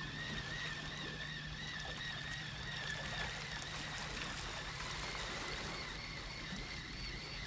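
Calm sea gently lapping and trickling among the stones of the foreshore on a flooding tide, with a steady low hum and a faint, slightly wavering high whistle that fades about halfway through.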